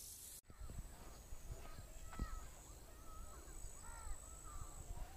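Faint birdsong: several birds chirping and calling in short, scattered calls over a low rumble and a thin steady high tone.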